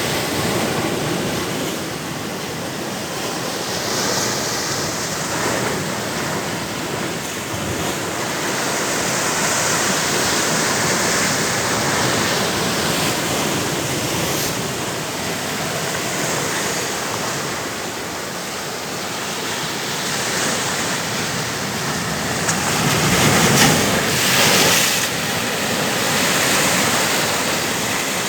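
Rushing water, a steady wash of noise that swells and eases slowly, with a louder surge about 23 seconds in.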